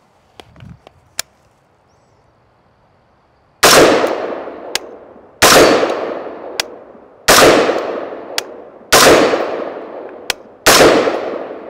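Five slow aimed shots from an Anderson AM-15 Dissipator 5.56 rifle, spaced just under two seconds apart, starting about three and a half seconds in. Each report echoes and fades over about a second and a half, and each is followed about a second later by a faint ping of the round hitting the steel target.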